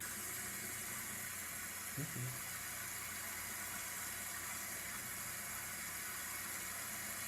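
Shower running: a steady hiss of water spraying down, with a brief low bump about two seconds in.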